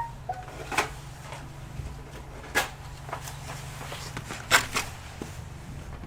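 Scattered clicks and knocks as the HP Pavilion Wave 600 desktop's case is handled and worked open, the loudest knock coming near the end, over a steady low hum.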